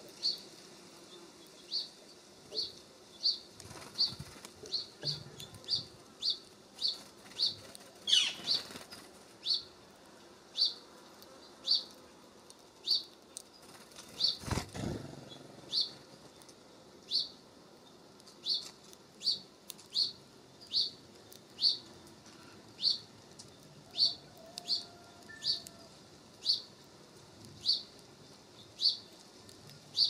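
A small songbird repeating a short, high chirp roughly once a second, unbroken throughout. A brief flutter of wings comes about eight seconds in, and a single low thump near the middle.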